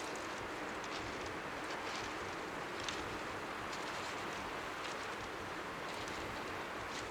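Strong sea wind blowing over the microphone, a steady rushing hiss, with faint waves lapping on the shore underneath.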